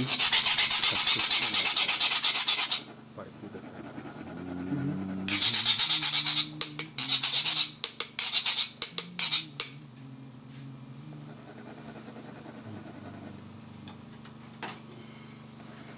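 Monks' ridged metal sand cones (chak-pur) grated with a metal scraper so the coloured sand trickles out: fast continuous rasping for nearly three seconds, then after a pause a second spell that breaks into separate short strokes and stops about ten seconds in.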